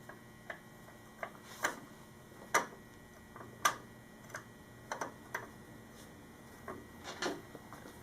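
Light, irregular metal clicks and taps, about ten of them, as the chain adjuster bolt is fitted and threaded in by hand.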